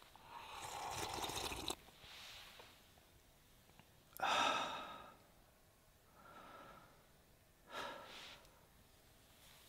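A person's breathy exhalations and sighs, several in a row with pauses between, the loudest a little over four seconds in.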